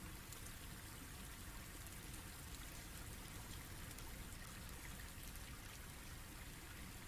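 Faint, steady background hiss with no distinct sounds in it.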